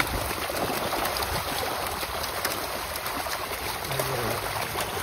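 Water flowing steadily, with faint light splashes.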